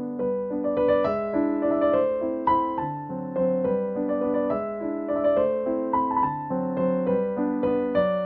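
Background piano music: a calm melody of notes struck every half second or so over held chords.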